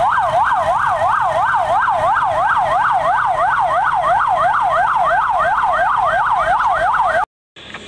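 Emergency vehicle siren in a fast yelp, its pitch rising and falling about four times a second, loud and steady, then cut off suddenly near the end.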